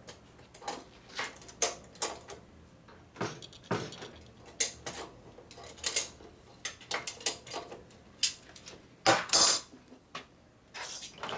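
Hand tools clinking and clicking on the metal of a motorcycle's steering head and triple tree while the fork neck bearings are adjusted. The clinks are irregular, with a louder short clatter about nine seconds in.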